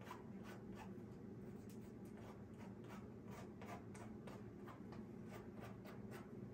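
Faint, quick scratchy strokes of a comb drawn through a wig's hair, about three a second, over a steady low hum.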